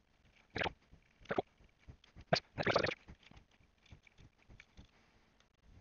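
Knocks, clicks and a short scraping rustle as a black plastic receiver case is handled and its clip tabs pressed to work a plastic piece loose, followed by fainter small ticks.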